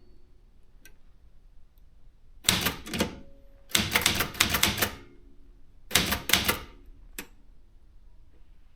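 Brother JP 1 typewriter being typed on: after a pause, three short runs of quick keystrokes with gaps between them, then a single keystroke.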